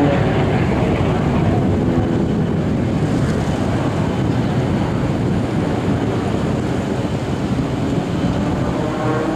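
Drone of a propeller race plane's piston engine over a steady rushing noise. Near the end the engine tone comes up again as a plane approaches.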